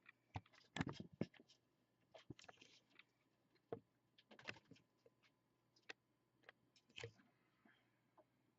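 Scattered faint clicks and taps of power-supply cables and plastic connectors being handled and plugged in inside a PC case.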